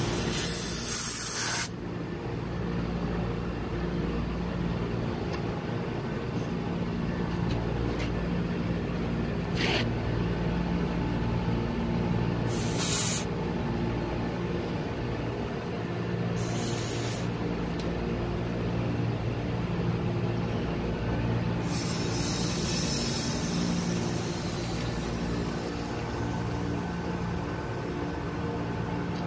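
Steady hum of running HVAC refrigeration machinery, with bursts of refrigerant gas hissing through recovery hoses and valves: a short hiss at the start, a few brief ones in the middle, and a longer one near the end.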